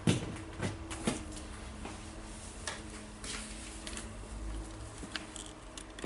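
Light handling knocks and clicks, a sharp one at the start and two more within the first second or so, then faint scattered ticks over a low hum.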